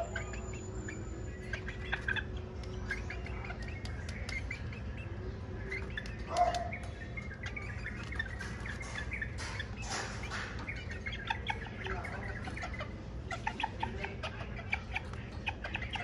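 Bantam rooster making short, scattered clucks, with one louder cluck about six and a half seconds in. A brief rustle of feathers comes around ten seconds in, over a low steady hum.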